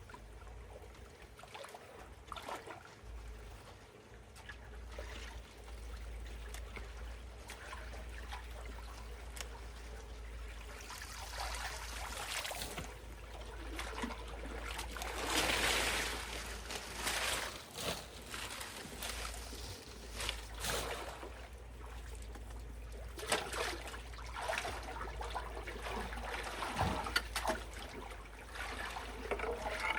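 Water trickling and running through a debris-clogged culvert, with scattered splashes and sloshes that are loudest about halfway through.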